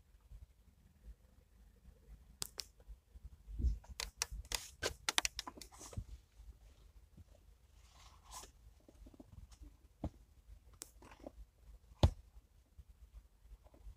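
Scattered clicks and rustling handling noises, with a quick run of clicks about four to five seconds in and one sharp knock near the end.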